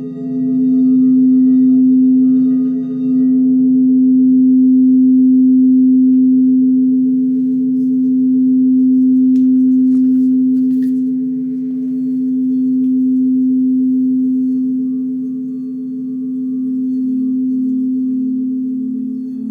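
Singing bowl sounding a sustained low tone with fainter higher overtones, its loudness slowly swelling and ebbing in long waves.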